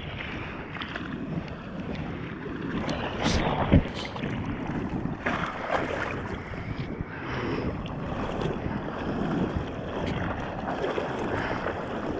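Ocean water sloshing around a bodyboard at the surface, with irregular splashes from the rider's paddling arm strokes every second or two.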